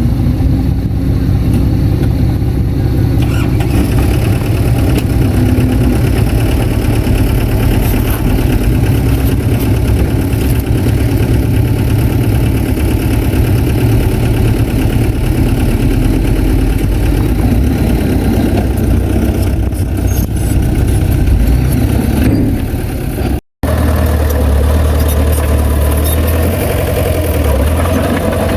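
Heavy diesel engine of earthmoving machinery running steadily under load. The sound drops out for an instant about 23 seconds in, then the engine sound carries on.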